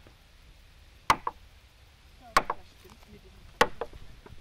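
Three sharp knocks, evenly spaced about a second and a quarter apart, the first and last each followed by a lighter second hit.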